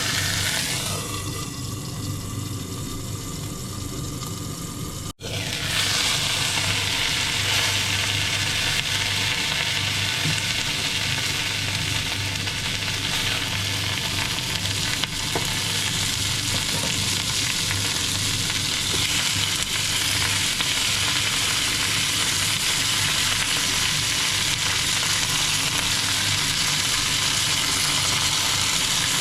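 Chicken and vegetables sizzling as they fry in a pan, a steady hiss. There is a sudden break about five seconds in, after which the sizzling is louder.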